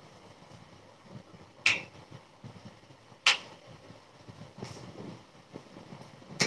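Three sharp clicks or knocks, a second or two apart, with a fainter one between the second and third, over low steady room noise.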